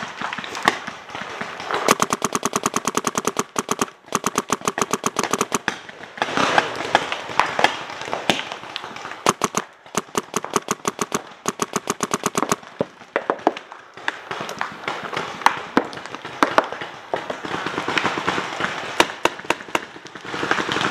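Paintball markers firing rapid strings of shots in several bursts, with short breaks between them.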